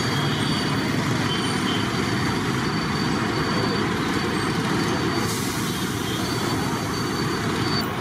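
Steady street traffic noise from passing vehicles.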